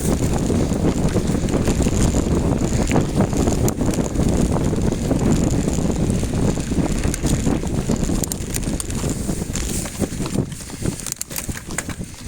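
Wind rumbling on the microphone during a mountain bike ride, with scattered clicks and rattles from the bike; the rumble eases off near the end.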